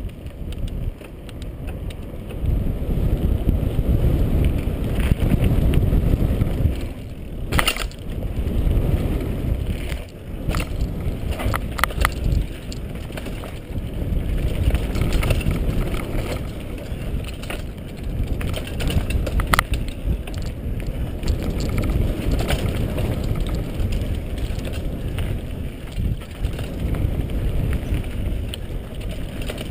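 Mountain bike riding fast down a dirt trail: a steady low rush of tyre and wind noise, rising and falling with speed, broken several times by sharp clatters as the bike rattles over bumps.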